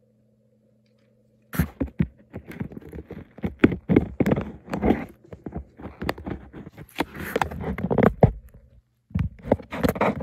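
Faint steady hum, then from about a second and a half in a dense, irregular clatter of handling sounds: sharp knocks, scrapes and rustles, with a brief pause shortly before the end.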